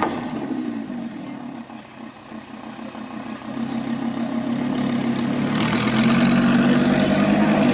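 Lamborghini Huracan LP610-4's V10 engine through a very loud exhaust. It dies away after a rev, is at its quietest about two seconds in, then grows steadily louder at an even pitch from about three seconds in and stays loud near the end.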